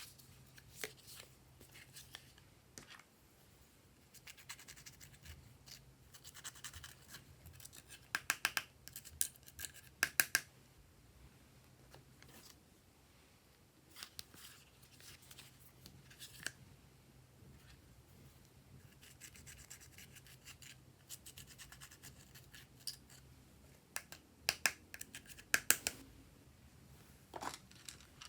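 Glossy slime being worked by hand, giving faint, irregular sticky clicks and crackling pops, with a few louder clusters of clicks.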